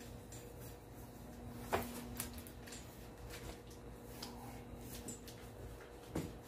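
Faint rubbing and handling of a vinyl seat cover being smoothed and worked onto a metal seat frame, with two sharp clicks, one about two seconds in and one near the end, over a low steady hum.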